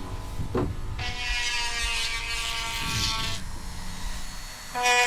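An electric power tool motor whining. Its pitch glides about half a second in, it runs steadily until past three seconds, drops away, and starts up again near the end.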